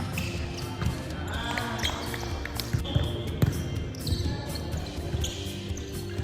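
Volleyball game sounds on a hard indoor court: the ball struck by hands and bouncing, giving sharp slaps and thuds at irregular moments, with a few short shoe squeaks.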